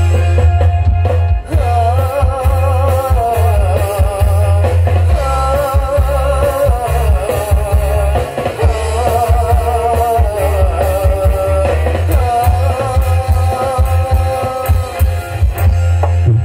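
Music: a melody with a strong, wavering vibrato over deep, heavy bass.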